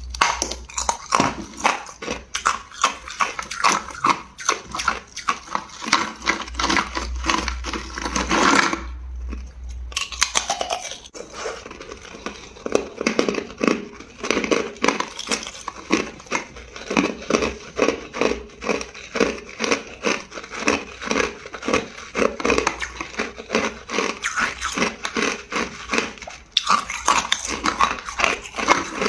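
Hard clear ice being bitten and chewed: a dense run of sharp cracks and crunches, with a short pause about nine seconds in.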